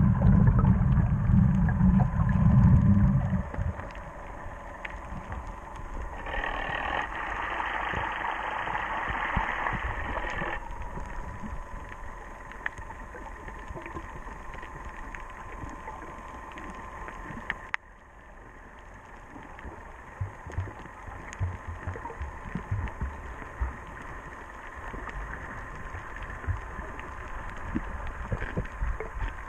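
Muffled underwater sound through a camera's waterproof housing: a low rumble of moving water for the first few seconds, then a few seconds of hiss, with scattered faint clicks throughout. The sound drops off abruptly a little past the middle.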